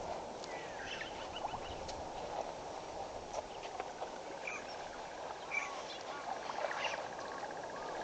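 Wild birds chirping and calling over a steady outdoor hiss, with a fast, even trill starting about halfway through.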